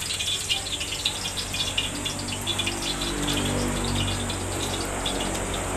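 Garlic sizzling and crackling as it fries in hot cooking oil, a dense stream of fine pops. A low drone swells and fades about halfway through.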